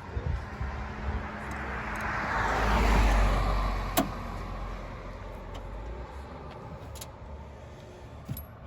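A car driving past, its engine and tyre noise swelling to a peak about three seconds in and then fading away. A single sharp click comes about a second after the peak.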